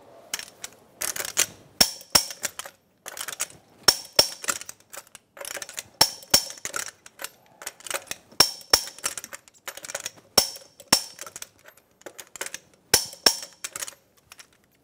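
Click-type torque wrench clicking as each of six lug nuts reaches its 150 ft-lb torque: a sharp double click about every two seconds, with light metal rattles of the socket being moved from nut to nut in between.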